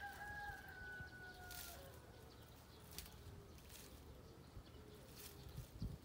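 A drawn-out animal call: one held tone, falling slightly in pitch over about a second and a half, followed by a fainter steady tone and a few light clicks.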